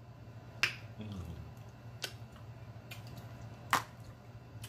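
Mouth smacks while eating crab from a seafood boil: three sharp smacks about a second and a half apart, the last the loudest.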